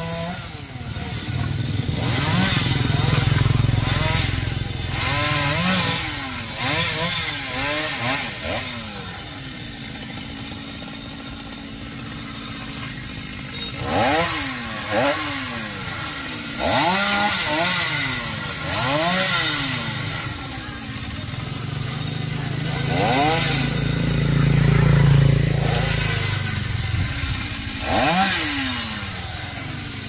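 Chainsaw engine idling and being revved in short blips again and again, its pitch rising and falling each time. A lower, steadier engine drone swells and fades twice.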